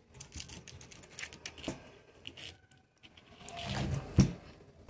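Handling noise from the plastic parts of a Lorenzetti Top Jet electric shower being picked up and moved about: scattered light clicks and knocks, with one louder knock about four seconds in.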